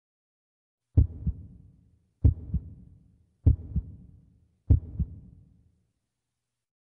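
Heartbeat sound effect: four deep double thumps (lub-dub), one about every 1.2 seconds, starting about a second in.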